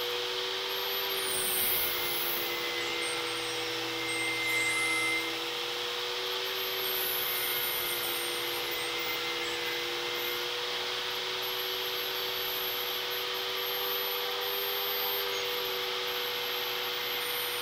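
Portable table saw running and ripping a 45-degree chamfer along a wooden leading-edge strip, with a steady motor whine whose lower tone sags and recovers as the wood is fed through the blade.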